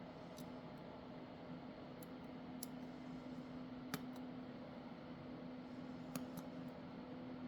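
Small sharp clicks of hand tools on smartphone parts, about five of them, the loudest about four seconds in, over a steady low hum.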